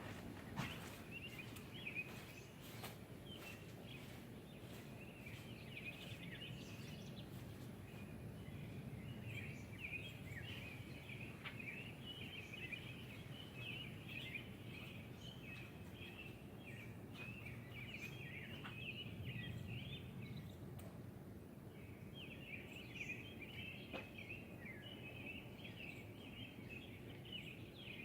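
Birds chirping steadily over a low, steady outdoor rush of storm wind and rain, with a few sharp ticks now and then.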